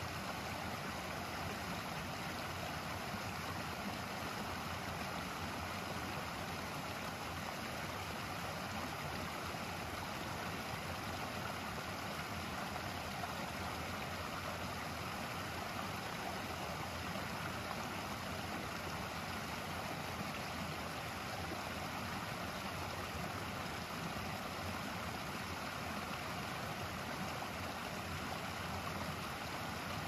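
Small waterfall and creek tumbling over rocks: a steady rush of running water.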